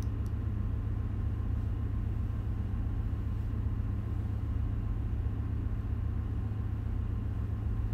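Steady low drone of ship engine-room machinery, running unchanged with no knocks or clicks standing out.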